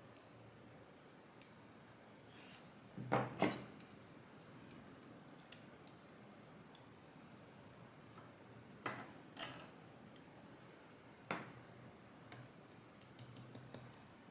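Small metal lock parts and tools clicking and clinking while a Kaba Gemini dimple lock is being taken apart, its pins and springs being worked out. The clicks come singly and a few seconds apart, with a louder double clink about three seconds in, another about eleven seconds in, and a quick run of small clicks near the end.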